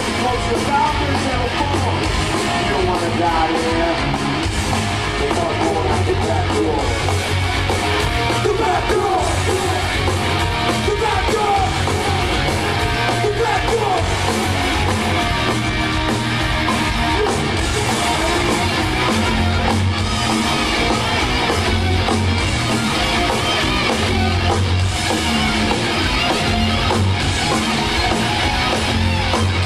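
Heavy metal band playing live at full volume: distorted electric guitars, bass and drums, with shouted vocals.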